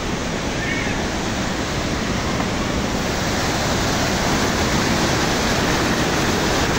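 Mountain waterfall rushing steadily as it cascades over rocks, growing a little louder toward the end.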